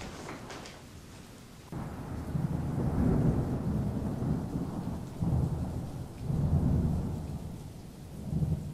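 Thunderstorm: low rolling thunder over rain, coming in suddenly a little under two seconds in and swelling four times.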